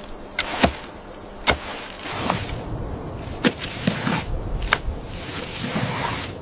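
Wooden sticks striking thatch and a mud-plastered wall: several sharp knocks at irregular intervals, the loudest in the first second and a half, over a steady noisy background.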